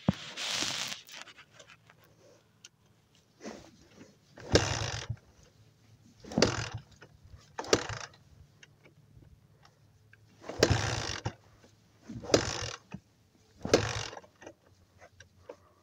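Dirt bike being kick-started over and over, about seven kicks a second or a few seconds apart, each a short burst of the kick-start gear and the engine turning over without catching.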